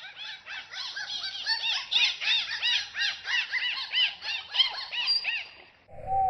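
Dolphin chirping in a rapid series of short rising-and-falling whistles, about four a second. Near the end it cuts to lower, longer falling whistles.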